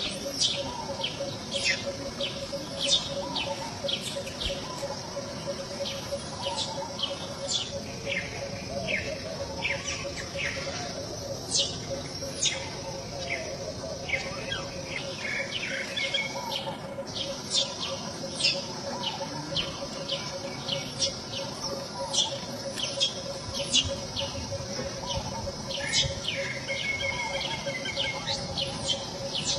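Birds chirping: many quick, high chirps, each falling in pitch, several a second, over a steady low hum.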